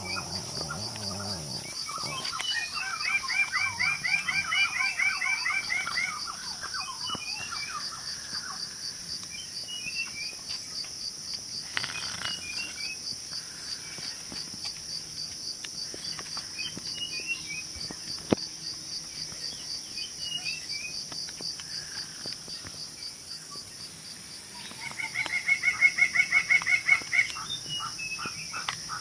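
Dry-forest ambience: insects buzzing steadily at a high pitch, with scattered bird chirps. Twice, about three seconds in and again near the end, a bird gives a loud, fast run of repeated calls lasting a few seconds.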